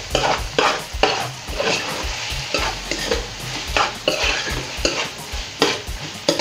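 A spoon scraping and knocking against a metal pot while stirring potatoes frying in oil, with a steady sizzle underneath and irregular knocks about once or twice a second.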